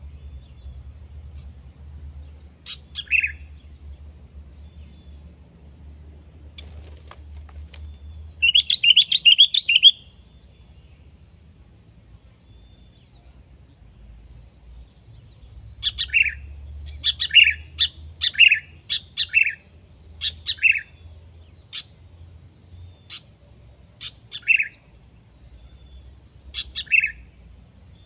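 Sooty-headed bulbul (kutilang) calls: a few short notes, then a loud rapid burst of chattering about a third of the way in, then after a pause a string of short separate call notes repeated every second or so.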